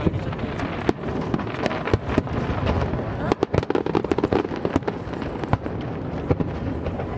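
Fireworks display with shells bursting in quick, irregular succession: many sharp bangs and crackles, several a second, with no pause.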